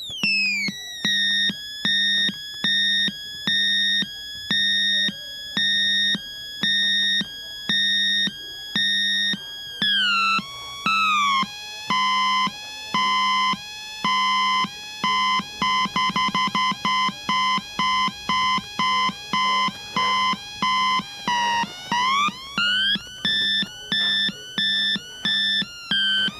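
Homemade two-555-timer siren circuit sounding through a small speaker: a buzzy electronic two-tone warble switching back and forth between a high and a low pitch in a steady rhythm. About ten seconds in, the pitch slides down and the switching gets faster. Later the pitch slides back up, under a steady low hum.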